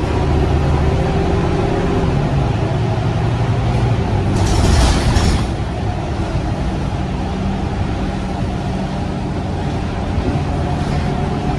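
Scania K230UB bus's five-cylinder diesel engine running under way, heard from inside the passenger cabin. A short hiss comes about four seconds in, and then the engine note drops and runs quieter as the bus eases off.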